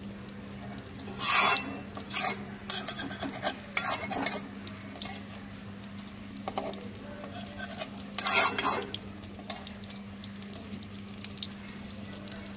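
Battered chicken leg pieces frying in a pan, with a utensil scraping and clattering against the pan in several short strokes. The loudest strokes come about a second and a half in and again about eight and a half seconds in. A steady low hum runs underneath.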